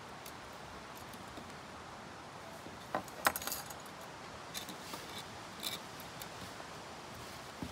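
Small metal hardware clinking and clicking as a carabiner and deck-peg hook are handled and clipped onto a tent corner: a cluster of sharp clinks about three seconds in, then a few lighter ringing clicks a couple of seconds later.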